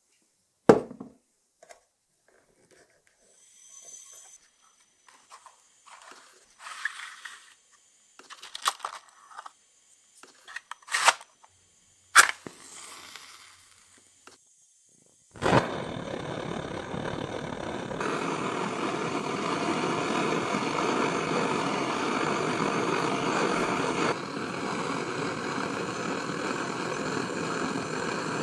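Handling clicks and knocks on a gas torch and canister, then a match struck with a short fizz as it flares about 12 seconds in. About three seconds later the gas torch lights with a sudden whoosh and burns with a loud, steady hiss.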